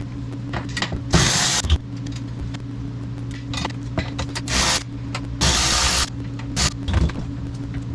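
Milwaukee 12-volt cordless 3/8-inch ratchet running in three short bursts, each about half a second, backing out bolts, with small clicks and clunks of handling in between over a steady low hum.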